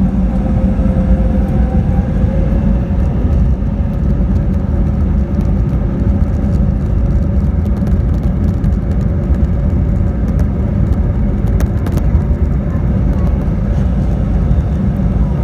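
Steady cabin noise of an Airbus A320neo in flight: a constant low rumble of its Pratt & Whitney PW1100G geared turbofan engines and the airflow, with a steady hum running through it.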